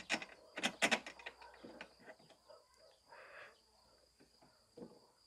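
A few sharp clicks and knocks in the first second, then scattered lighter ticks and a short scraping rustle about three seconds in: parts being handled while the cable holder is fitted to a cordless lawn mower.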